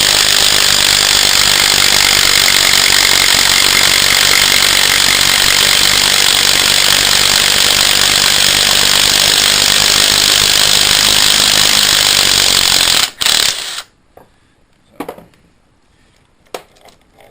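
Impact wrench hammering steadily on the forcing screw of a three-jaw puller for about thirteen seconds, pulling the magnet ring off a Kohler engine's crankshaft; it stops, gives one short second burst, then a few light metal knocks follow.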